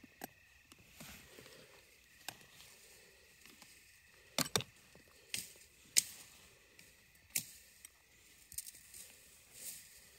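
Scattered metallic clicks and clinks of a steel jaw trap being set by hand in a pit in the ground, its jaws, trigger and chain handled, with the sharpest clicks near the middle.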